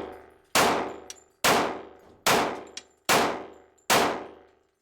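Glock 36 .45 ACP pistol firing five shots in steady succession, about one every 0.8 s, each with a long ringing echo. The pistol is cycling normally with its original slide stop refitted, no longer locking open after each shot.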